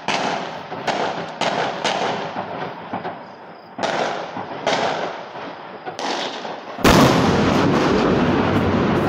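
A rapid series of sharp explosive bangs, about a dozen in seven seconds, each with an echoing tail, from an armed attack on police housing. About seven seconds in, a much louder blast is followed by heavy continuous noise.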